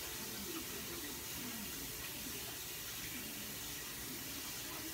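Chicken pieces frying in hot oil: a steady, even sizzle.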